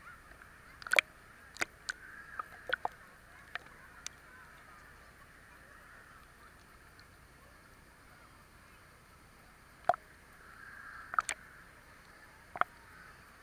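Pool water lapping and slapping against an action camera's housing held at the surface, heard as irregular sharp clicks and small splashes over a faint muffled hiss.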